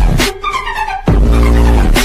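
Electronic dubstep-style music with heavy sustained bass and a gliding synth lead, briefly dropping out about a second in.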